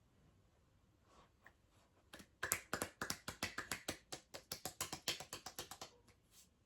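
Rapid tapping: a run of sharp clicks, about eight a second, lasting about four seconds, starting about two seconds in.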